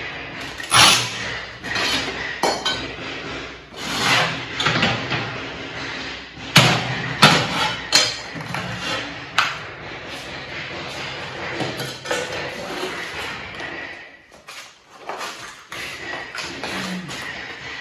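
Ceramic floor tiles being laid by hand: irregular knocks as tiles are tapped down into mortar, and clinks of tile against tile, over a steady background noise that drops away about fourteen seconds in.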